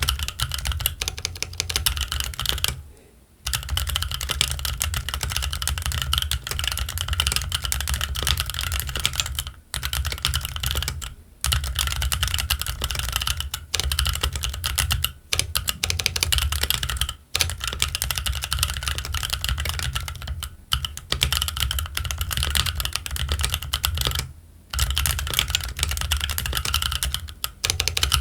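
Keychron Q1 mechanical keyboard with Gazzew Boba U4T tactile switches and ABS Cherry-profile keycaps, typed on fast and continuously: a dense run of key clacks broken by several brief pauses of under a second.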